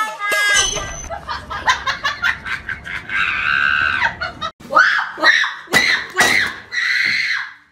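Quick bursts of laughter, then high-pitched screaming, with several shrieks and one long held scream near the end.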